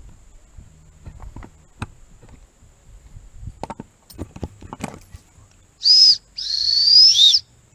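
Light metal clicks and knocks from hand tools being worked, then two loud high-pitched whistled notes: a short one with a rise and fall, then a longer one rising slightly, with a second falling tone near its end.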